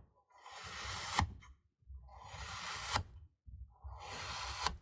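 Serrated knife slicing down through a block of packed kinetic sand, three cuts in a row: each a gritty scraping hiss that swells and ends in a sharp tap as the blade reaches the surface below.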